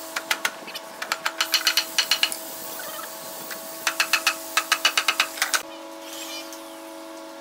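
Light hammering on wood: quick taps, about six to eight a second, in three runs that stop a little over halfway through, over a steady hum.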